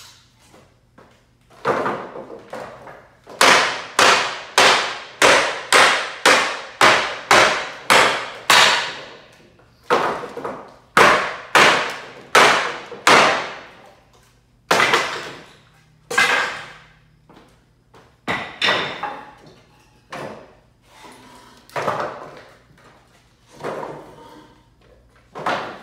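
Hammer blows on a wooden pallet, knocking it apart. A fast, even run of about a dozen strikes, roughly two a second, is followed by slower, irregular blows, each ringing briefly.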